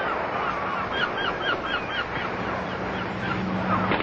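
Birds calling: a string of short, quick calls, thinning out after about two seconds, over a steady hiss.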